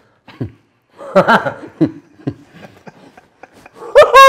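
People laughing: short chuckles at first, building to a loud burst of laughter near the end.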